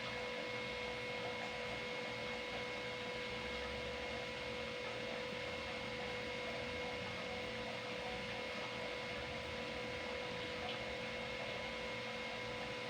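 A steady electrical hum with a faint constant whine over low hiss, unchanging throughout.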